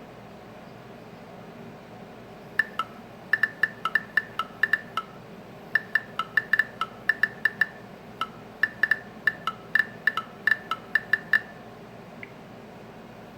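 Short electronic phone beeps at two alternating pitches, in three quick repeated phrases over about nine seconds.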